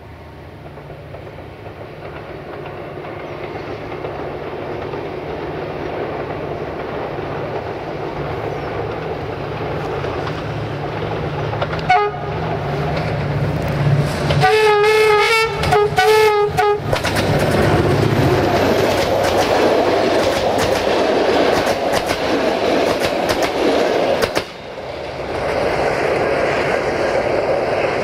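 A CFR Class 65 diesel locomotive approaching with its engine rumble growing louder, giving a short horn toot about 12 s in and then two longer horn blasts, before its passenger coaches pass close by with loud wheel and rail clatter.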